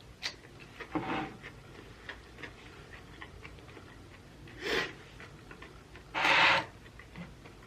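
Close-up eating sounds: small mouth clicks and chewing on a snack, with two short rushing noises of breath in the second half, the second one louder.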